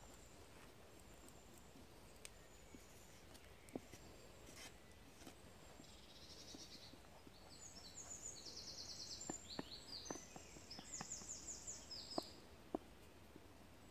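Quiet woodland ambience with a songbird singing quick, repeated high trills for several seconds from about halfway through, and a few soft clicks of a wooden spoon against an enamel bowl as bannock dough is stirred.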